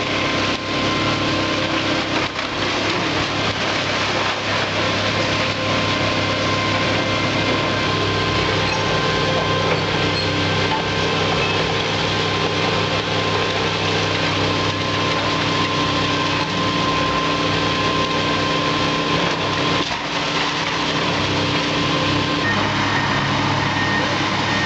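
Hydraulic excavator's diesel engine running steadily as its bucket tears into a timber-framed building, with constant cracking and clattering of breaking wood and falling debris.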